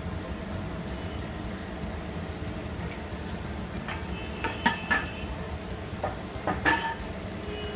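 A few sharp clinks of kitchenware, each ringing briefly, about four seconds in and again near the end, over a steady low hum.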